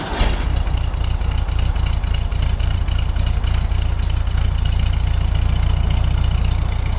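1971 VW Beetle's air-cooled flat-four engine idling steadily with an even exhaust pulse. The engine needs a tune-up but sounds relatively healthy.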